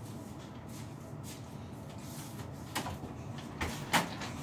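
Low steady room hum, then three light knocks and bumps in the last second and a half, like a door or cupboard being handled.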